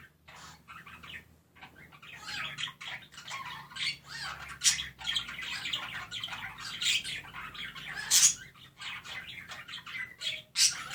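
Budgerigars chirping and warbling in a busy, continuous chatter of short, sharp chirps, with a quieter spell in the first second or so.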